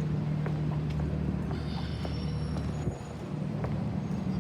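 A motor vehicle's engine running steadily with a low hum, dropping off briefly about three seconds in.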